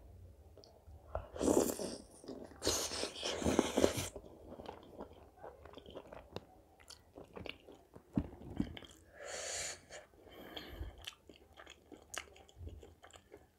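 Close-miked chewing and biting of butter chicken and naan, with many small wet mouth clicks. Three loud breathy bursts about a second long break in, near two seconds, from about three to four seconds, and near ten seconds.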